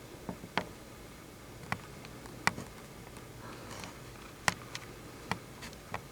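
A series of sharp, irregular clicks or taps, about eight of them spread unevenly over a few seconds, over a quiet steady background.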